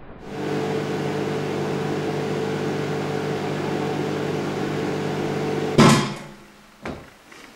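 Samsung microwave oven running with a steady hum while it heats a raw egg, then a sudden loud bang near the end as the egg bursts, after which the hum stops. A smaller knock follows about a second later.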